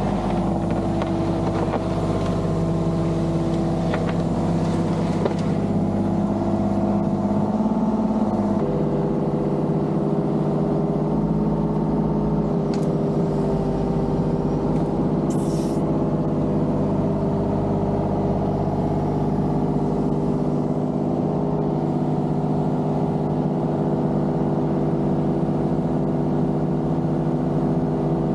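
Diesel engine of a compact construction machine running steadily while it works, its tone shifting once about eight seconds in. A short hiss about fifteen seconds in.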